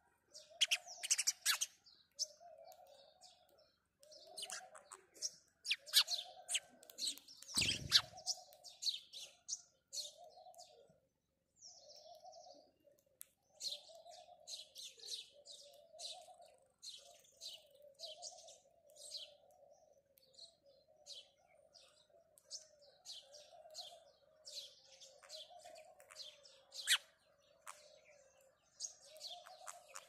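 Several house sparrows chirping constantly in quick, overlapping chirps. A lower note repeats about once a second underneath, and there is a single thump about eight seconds in.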